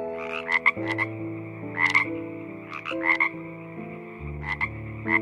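Frogs croaking in short pulsed calls, about one a second, over soft background music with held notes.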